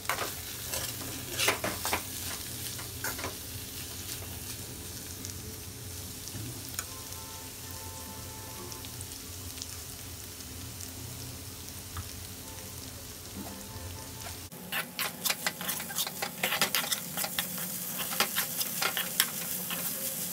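A steel spoon scraping and stirring crumbly scrambled egg masala in a metal kadai while it sizzles gently, the nearly cooked dish being sautéed at the end of cooking. The stirring eases off for several seconds in the middle, leaving the soft sizzle, then comes back as quick, busy scraping for the last few seconds.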